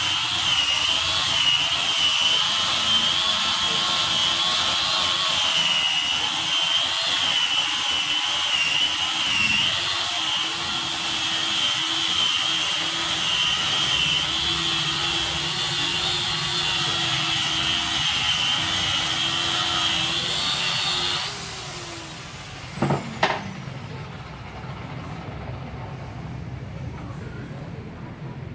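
Electric hand sander running against a wooden door frame with a loud, steady high whine. About three quarters of the way through it is switched off and winds down, falling in pitch. Two short knocks follow soon after.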